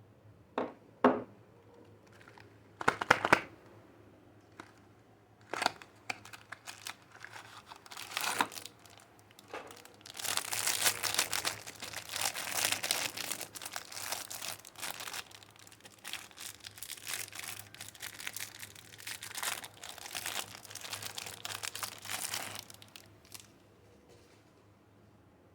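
Wrapper of a bar of soap being torn open and crinkled by hand: a few short crackles at first, then a long stretch of steady crinkling and tearing that stops shortly before the end.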